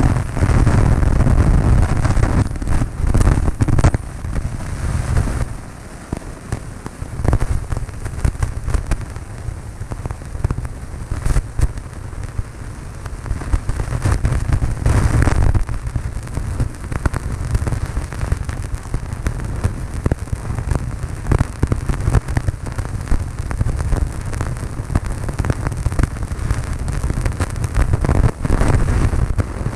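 Cessna 152 cabin noise in flight: a steady drone from the engine and propeller, with many crackles of wind buffeting the microphone. The drone dips for a moment about six seconds in.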